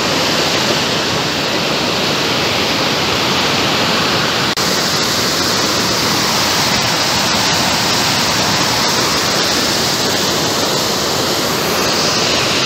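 Rain-swollen stream in flood, rushing and churning over rocks in a steady torrent, with one momentary break about four and a half seconds in.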